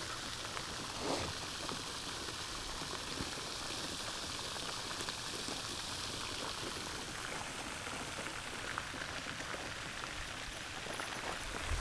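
Steady rushing of a brook's small waterfall cascading over rocks.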